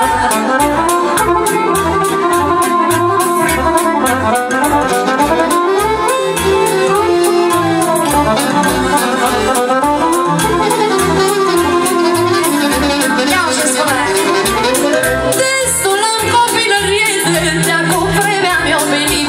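Loud dance music with a steady beat of about two a second under a winding melody line.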